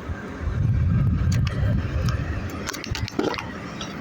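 Uneven low rumbling noise, strongest in the first half, with scattered sharp clicks and taps and a brief higher sound about three seconds in.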